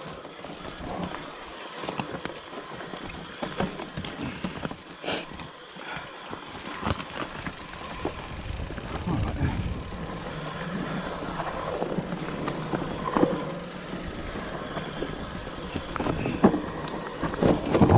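Specialized Turbo Levo electric mountain bike riding down a forest dirt trail: tyres rolling over dirt and roots with scattered knocks and rattles from the bike. A low rumble grows louder from about halfway through.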